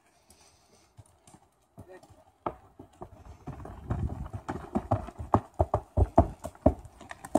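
Horse's hooves clopping on the wooden planks of a suspension bridge as it walks across, starting about two and a half seconds in and coming thick and fast near the end.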